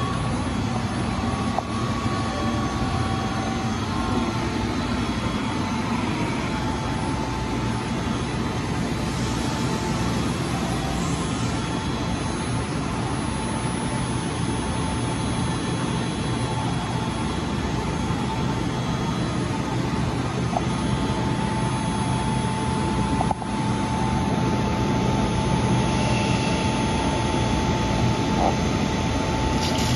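BLOHM Precimat CNC creep-feed surface grinder running: a steady mechanical whir with a thin steady whine over it. One short click about three-quarters through, after which the noise is a little louder.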